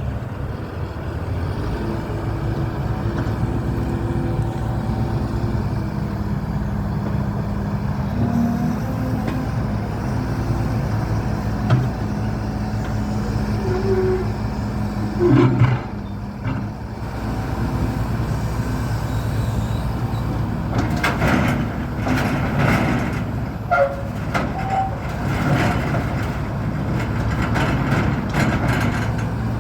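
Case CX130C excavator's diesel engine running steadily, with a few short squeaks and a run of metallic clanks and knocks in the last third.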